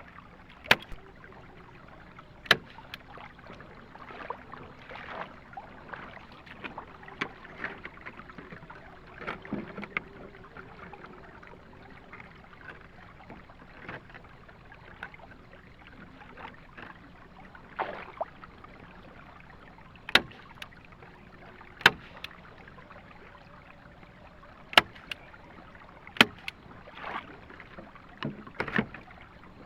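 Sharp wooden knocks at irregular intervals of a few seconds, among softer rustling and scraping: bamboo being handled and knocked together.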